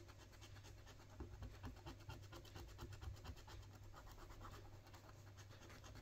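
Scratch card being scratched: the coating is scraped off the card in rapid, faint strokes, several a second.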